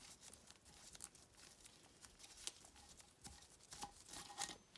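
Faint, scattered small metal clicks and taps from a valve spring compressor being eased off a valve spring as the valve keepers seat, with a few slightly louder clicks near the end.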